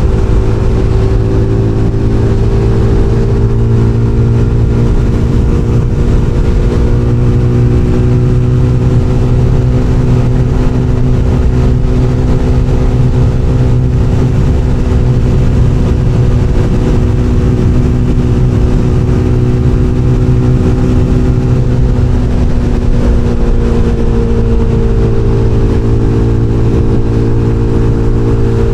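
SBM 250 S motorcycle engine pulling at a steady speed, a constant drone that hardly changes pitch, over a heavy low rumble.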